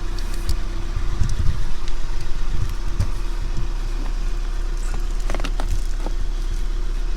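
Car engine idling steadily, with a few light knocks and rustles of handling over it.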